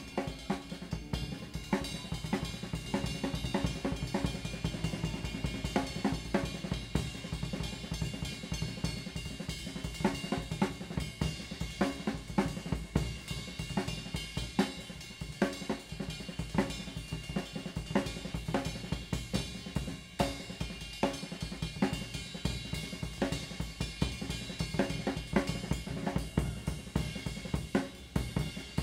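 Rock drum kit played solo: a fast, busy run of snare and bass drum strokes under a steady wash of cymbals and hi-hat, from a live soundboard recording.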